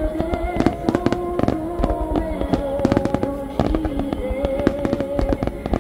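Many aerial firework shells bursting in quick succession, a dense run of sharp bangs, over music with a slow, held melody.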